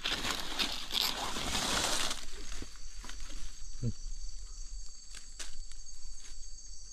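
Leaves and brush rustling for about two seconds as the undergrowth is pushed aside. Then steady high chirring of crickets and other night insects, with a few light clicks.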